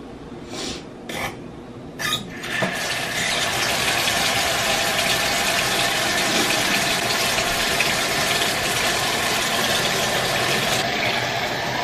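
Kitchen tap running into a stainless-steel sink, the stream splashing on the basin and over a hand and a glass. It starts with a few short spurts, then runs in a steady stream.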